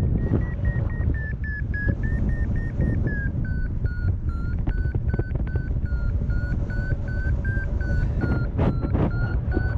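Paragliding variometer beeping in a fast run of short tones, its pitch dipping about three seconds in and then creeping back up, the audio signal that the glider is climbing, over loud wind rush on the microphone from the airflow. A few sharp knocks near the end.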